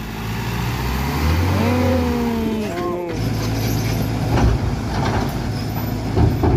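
Diesel truck engine running under load on a muddy climb, with a wavering pitched call over it midway. After a sudden cut, a steady low heavy-engine hum with a few knocks.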